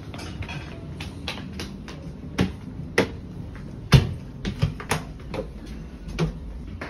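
Irregular footsteps clicking on a hard wooden floor, with a louder knock about four seconds in as a door is pushed open.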